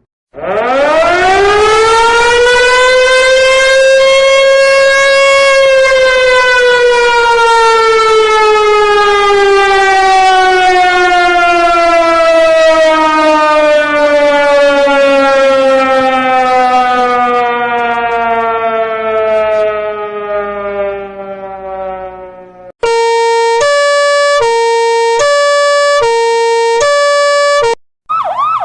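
Siren sound effects: a civil-defence-style siren winds up steeply to a peak about five seconds in, then slowly winds down for over fifteen seconds. After a short break, a two-tone siren alternates between a lower and a higher note for about five seconds.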